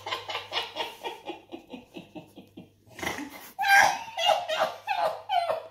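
People laughing: a run of quick rhythmic 'ha-ha' pulses for about three seconds, then after a brief pause more laughter breaks out again.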